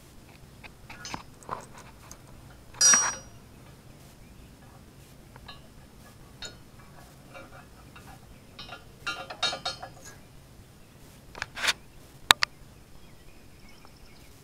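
Scattered metal clinks and clanks of a wrench and steel hitch parts being handled. The loudest is a ringing clank about three seconds in, there is a quick cluster of clinks around the ninth and tenth seconds, and a sharp click comes near the end.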